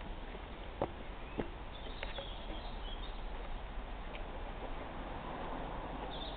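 Outdoor background noise with faint high chirps of small birds around two to three seconds in and again near the end, and a few short sharp clicks in the first two seconds.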